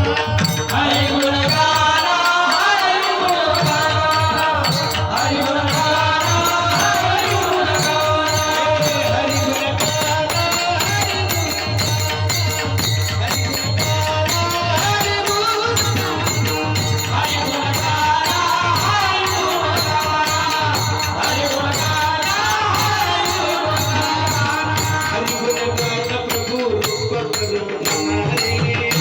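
A Marathi varkari bhajan: a singer's voice carrying a devotional melody over dense, fast rhythmic percussion with jingling, rattling strokes.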